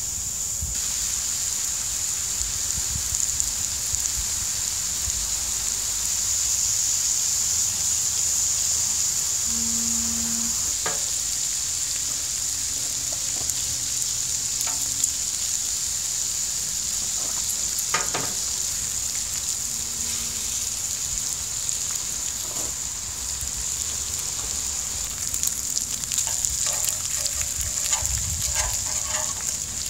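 Bacon strips sizzling on a hot flat-top griddle, a steady frying hiss. Metal tongs click against the griddle now and then, more often near the end.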